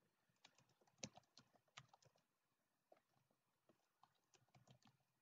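Faint typing on a computer keyboard: irregular keystroke clicks in two quick runs with a short pause about halfway through, as a password is entered.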